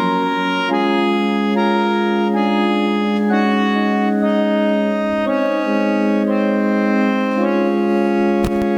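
Organ playing sustained hymn chords that change about once a second, the introduction to a hymn before the singing begins. A brief click comes near the end.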